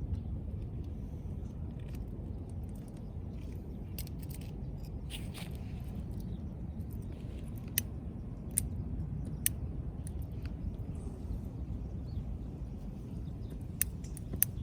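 Wood fire crackling, with a few sharp pops scattered through the second half over a low steady rumble.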